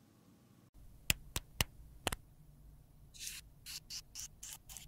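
A lipstick case being handled by gloved fingers. First come four sharp clicks, then about a second later a quick run of short scratchy rubbing strokes.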